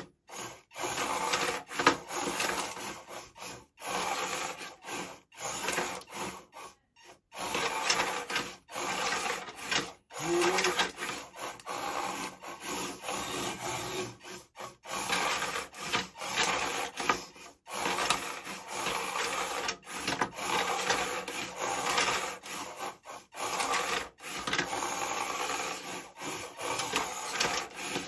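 Two antweight combat robots driving and shoving each other around a small wooden-floored arena: small drive motors whining and plastic wheels scrubbing on the board. It comes in stop-start bursts a second or so long, with a sharper knock about two seconds in.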